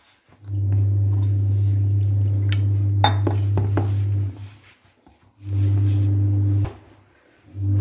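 Hands mixing flour into dough in a stainless-steel bowl, with a few sharp clinks against the bowl about three seconds in. Under it runs a loud steady low hum that cuts out abruptly twice for about a second.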